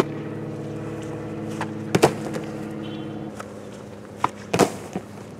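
Soccer ball thuds and a goalkeeper's diving save toward padded crash mats: two loud thuds, about two seconds in and about four and a half seconds in, with lighter knocks around the second.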